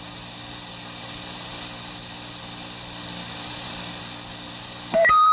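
Steady hiss and low hum of a 1983 police radio dispatch tape recording on an open, quiet channel. Near the end a sudden click and a loud high beep mark the start of a transmission.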